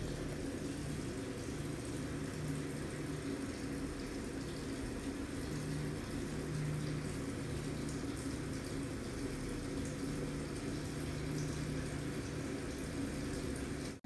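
Panasonic 8.5 kg TD Inverter top-load washing machine running its wash cycle: soapy water churning and splashing in the drum over a steady low hum.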